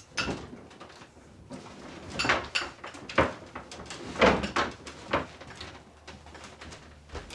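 A wooden desk being shoved and shifted by hand: a string of knocks and short scrapes, loudest about four seconds in.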